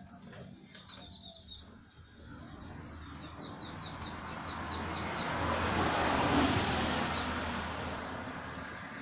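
A vehicle passing by, its noise swelling to a peak about six seconds in and then fading away. A small bird chirps in a quick run of short repeated notes over the first five seconds.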